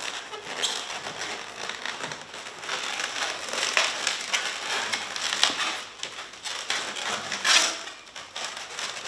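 Inflated latex twisting balloons rubbing and squeaking against each other under the hands as they are twisted and joined together, an irregular crinkly rubbing with sharper squeaks, the strongest a little after seven seconds in.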